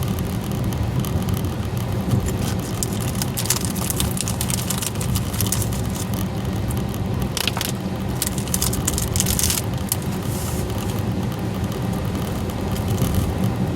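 A car driving through heavy rain, heard from inside the cabin: steady engine and tyre rumble with rain on the car and the wet road.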